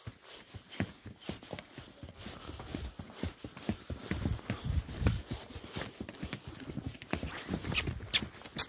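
Horses' hooves clopping on a dirt forest trail at a walk, an irregular run of footfalls, with some heavier low thuds about halfway through.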